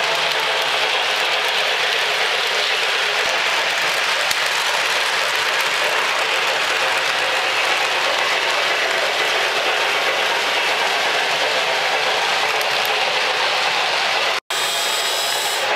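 O-gauge model trains running on Lionel Fastrack: a steady, loud rattle of wheels and motors on the plastic-based track. The sound cuts out for an instant near the end and comes back hissier.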